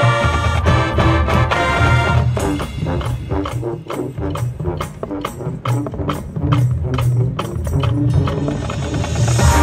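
High school marching band playing: held brass chords, then a sparser passage of steady, evenly spaced percussion strikes over low notes, with the full band coming back in loudly near the end.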